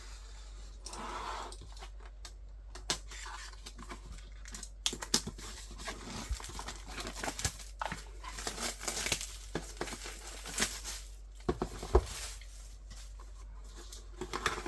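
Packaging being handled and opened by hand: plastic wrap crinkling and tearing, with many scattered light taps and clicks.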